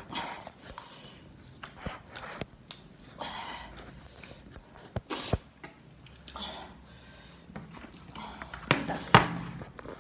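Eating sounds: a person chewing and crunching snack food, with scattered sharp clicks and taps and a louder cluster of crunches near the end.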